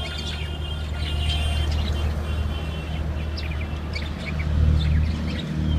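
Caged lovebirds chirping in short, high calls over a steady low rumble that grows louder about four seconds in.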